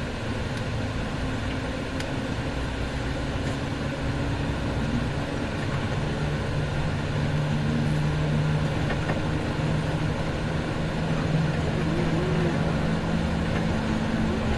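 Steady engine and road noise from inside a moving vehicle, with a low engine hum, growing slowly louder as it drives on.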